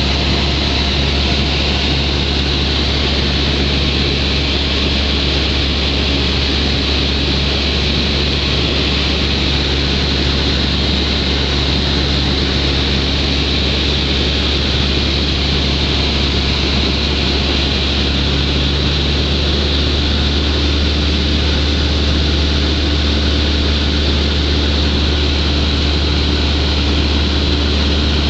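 Cessna 172's piston engine and propeller droning steadily in flight, with a constant rushing hiss over the drone. The engine tone shifts slightly about two-thirds of the way through.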